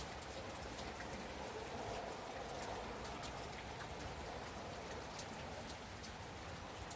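Gentle rain falling steadily, mixed with the scattered small pops and crackles of a fireplace fire.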